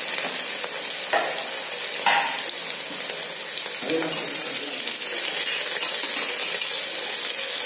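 Sliced onions frying in hot oil in an aluminium pressure cooker: a steady hissing sizzle, with a few faint knocks, as they are fried toward golden brown for birista. Near the end a wire skimmer stirs them.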